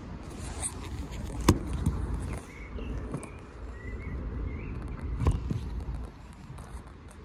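Steady low outdoor rumble with small birds chirping now and then, and two sharp knocks, one about a second and a half in and another near five seconds.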